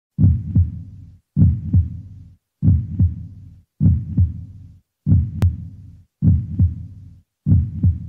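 Heartbeat sound effect: a low double thump repeating about every 1.2 seconds, seven times, with one sharp click a little past halfway.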